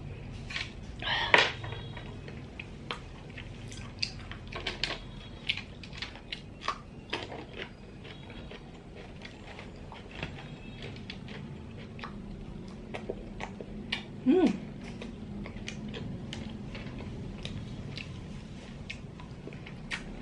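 Nerite snail shells in garlic butter clicking against each other and against a metal pick as the meat is picked out, with small chewing and mouth noises. Two louder sounds stand out, one about a second in and a short pitched one about two-thirds of the way through.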